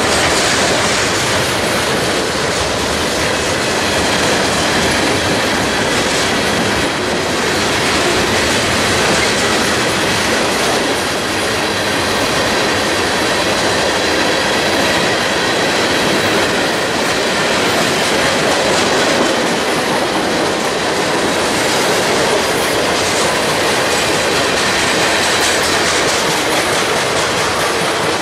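Freight train cars rolling past close by: steady, unbroken noise of steel wheels on the rails.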